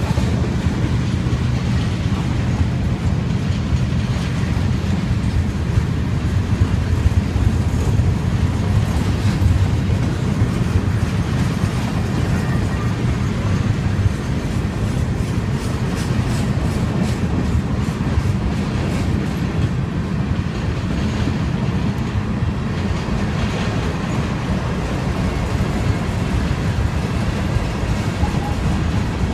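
Mixed freight cars of a passing Norfolk Southern freight train rolling by: a steady low rumble of steel wheels on the rails, with a run of wheel clicks midway.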